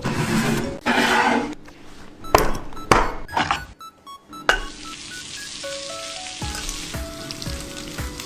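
Soft background music with a simple melody over kitchen cooking sounds. There are a few knocks and clatters in the first half, then a steady hiss that starts about halfway through.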